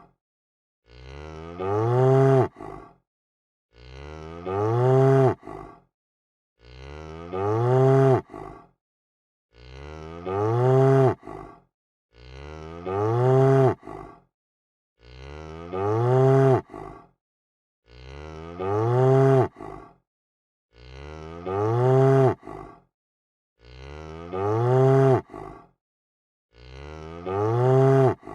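Domestic cow mooing: the same call repeated about ten times at an even pace, roughly one every three seconds, with silence between. Each moo lasts about two seconds, swells louder toward its end and stops abruptly, like a looped recording.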